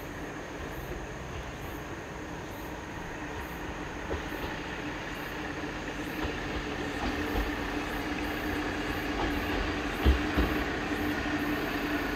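Kiha 40 single-car diesel railcar running past, its engine a steady hum that grows louder as it approaches, with a few low thumps from the wheels over rail joints from about ten seconds in.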